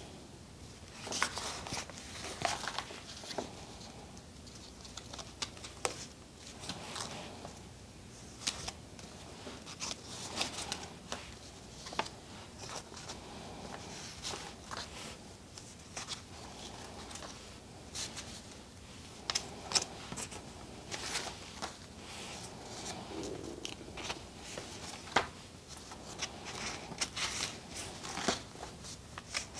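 Paper pages of a homemade planner insert being turned one after another, a brief rustle or flap with each page at irregular intervals.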